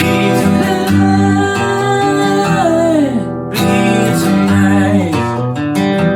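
Acoustic guitar strummed in a rootsy holiday song. Over it a held melody note slides down in pitch, about two and a half seconds in and again near five seconds.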